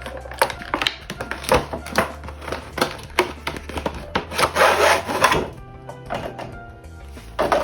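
Rustling and light taps from a fabric pouch being handled, with a longer, denser rustle about four and a half seconds in, over quiet background music.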